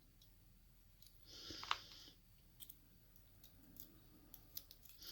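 Small metal lock parts being handled: scattered faint clicks, plus a short scrape with a sharper click about a second and a half in, as pins and springs are worked out of the lock.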